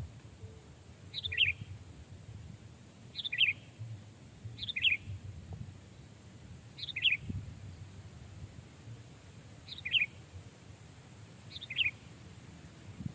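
Sooty-headed bulbul calling: six short two-note calls, each dropping quickly in pitch, spaced a second or two apart.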